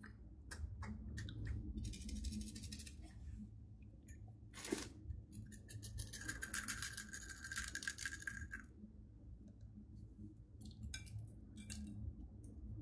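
Slime being kneaded and pressed by hand, thick with glitter and beads, giving sticky clicks and crackles, with two long runs of dense crackling and a sharp snap in between.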